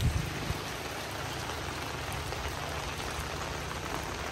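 Heavy rain falling steadily: an even hiss of raindrops, with a steady low rumble underneath.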